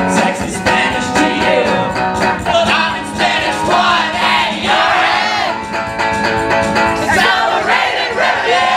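Live song: two male voices singing loudly over an electric guitar, heard through a PA.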